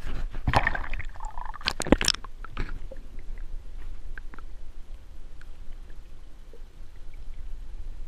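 Lake water splashing for the first two seconds as a northern pike is lowered in for release and the camera goes under. After that comes the dull, muffled noise of a microphone underwater, with a few faint clicks.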